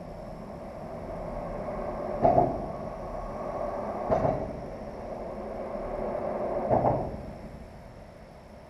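Vehicles crossing the road bridge overhead, heard from underneath the deck. Three times a rising tyre hum ends in a short double thump as the wheels hit the deck joint.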